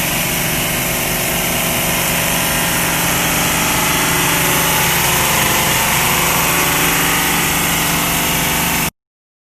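CNC wood lathe running, a steady machine drone with many held tones under a strong hiss, cutting off suddenly near the end.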